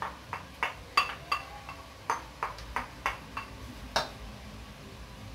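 A spoon knocking and scraping against a bowl and a cooking pan as washed rice is tipped out of the bowl into the pan: an irregular run of sharp knocks, two or three a second, some ringing briefly, with the loudest about a second in and near four seconds.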